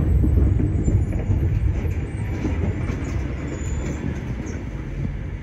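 Tram's heavy low rumble, slowly fading as it moves away from the stop.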